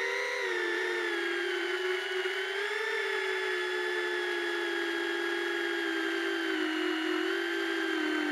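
Beta85X ducted FPV quadcopter's brushless motors and propellers whining in flight, heard from the drone itself. The pitch rises briefly at the start, holds mostly steady with small swells as the throttle changes, and dips near the end.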